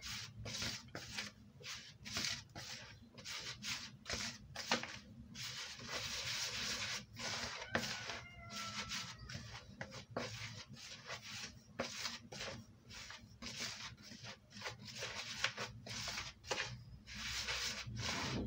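A hand mixing dry flour and salt in a plastic bowl: fingers rubbing and scraping through the flour against the bowl in repeated strokes, about two a second, with the occasional light click.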